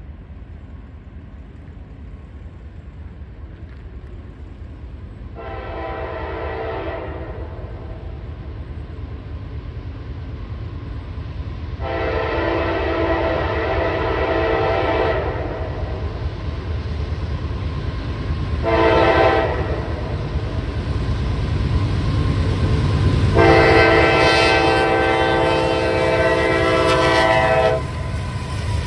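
Diesel locomotive's multi-note air horn sounding two long blasts, a short one and a final long one, the grade-crossing signal. Under the horn is the low rumble of the approaching train, growing louder.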